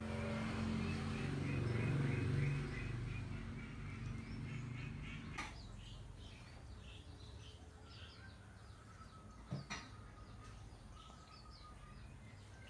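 Outdoor ambience with birds chirping in short repeated calls. During the first three seconds a low rumble and a rapid run of ticks sit under the birds, then fade. Two sharp clicks come about five and ten seconds in.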